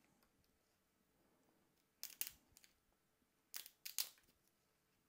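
Pliers snapping resin support struts off a washed SLA 3D print: a few sharp cracks, two close together about two seconds in and three more around four seconds.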